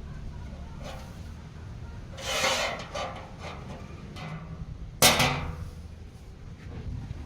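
Workshop tool sounds over a low steady hum: a brief scraping noise about two seconds in, then a single sharp knock about five seconds in.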